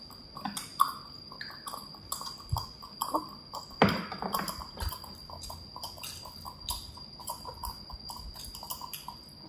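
Baby monkey drinking milk from a plastic cup: a run of small sips, swallows and cup clicks, with one louder knock about four seconds in.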